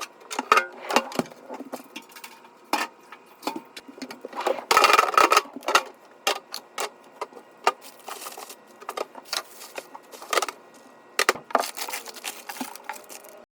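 Objects and containers being handled while a refrigerator is cleaned out: scattered light clicks and knocks, with a louder noisy burst lasting about a second, about five seconds in.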